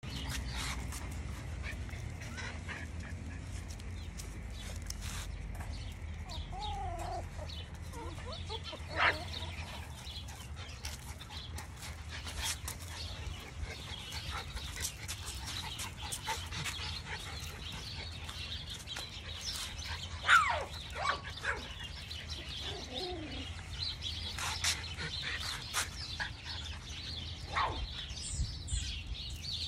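Young miniature Schnauzer puppies whimpering and squealing now and then in short, sliding cries. The loudest is a falling yelp about twenty seconds in, with another sharp cry near nine seconds.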